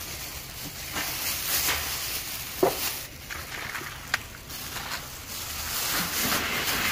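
Handling noise of food being served onto a banana leaf: soft rustling and scraping, with two short sharp clicks of a serving utensil against the dishes, one about two and a half seconds in and one about four seconds in.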